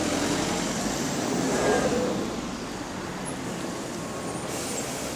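Alexander Dennis Enviro400 double-decker bus pulling in at the stop, its engine and radiator cooling fan running with a steady hum. The sound is loudest about two seconds in as the bus draws alongside, then eases a little as it slows.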